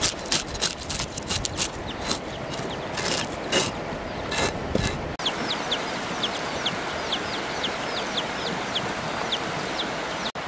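A knife scrapes scales off a fish on a wooden board in quick, irregular strokes. About five seconds in this gives way to chicks and ducklings peeping: many short, high cheeps that drop in pitch, two or three a second.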